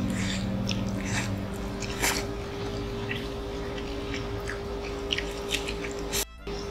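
Eating sounds: chewing and wet mouth smacks of people eating noodles and fresh lettuce, with scattered short clicks. The sound drops out briefly near the end.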